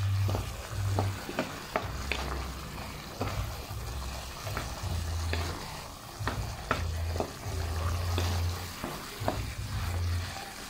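Wooden spatula stirring chicken and vegetables in tomato sauce in a hot pan: the sauce sizzles, and the spatula clacks and scrapes against the pan many times at an uneven pace. A low hum comes and goes under it.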